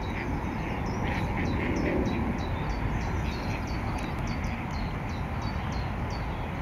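Common redshank calling: a steady series of short, high, down-slurred notes, about two or three a second, over a steady low rumble.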